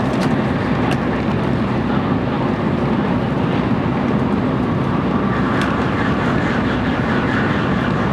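Cabin running noise of a JR Central N700 series Shinkansen, heard from inside a motor car: a steady, even rumble of the train at speed.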